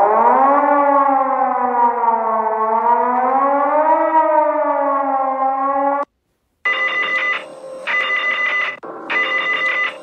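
Civil defence siren winding up and wailing with a slow rise and fall in pitch, cut off abruptly about six seconds in. After a short gap, a telephone bell rings in repeated short bursts.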